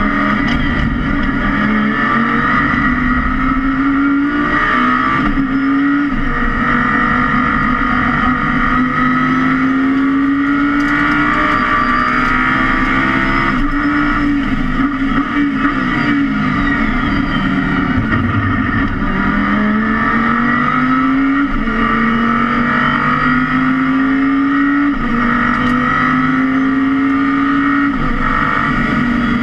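Audi R8 LMS race car's V10 engine heard from inside the cockpit, accelerating hard through the gears. Its pitch climbs and drops sharply at each upshift, about six times. In the middle the pitch falls away for a few seconds as the car slows for a corner.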